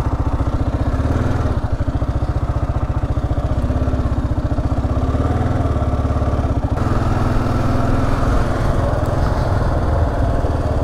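Kawasaki KLR650S single-cylinder four-stroke engine running steadily while riding, with a brief dip in level about two-thirds of the way through.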